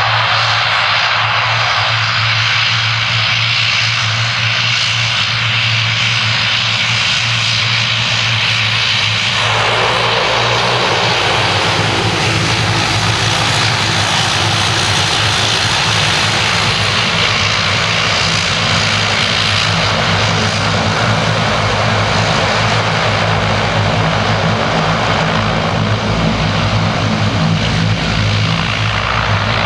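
ATR 42-320's two Pratt & Whitney PW121 turboprops running at taxi power as the aircraft rolls along: a steady propeller drone with a turbine hiss over it. The sound grows fuller and lower from about ten seconds in.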